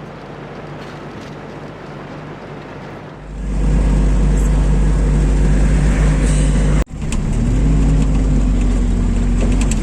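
Loaded truck on the move: engine and road noise. About three seconds in it turns much louder and deeper, with a brief break near seven seconds.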